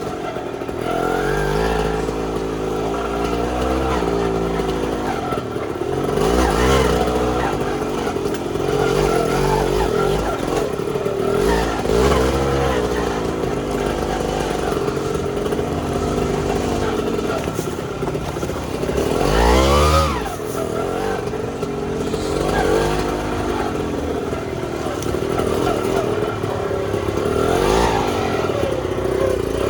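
Trail motorcycle engine revving up and down again and again as it is ridden over rocks, with sharp rev rises about 6, 12, 20 and 28 seconds in.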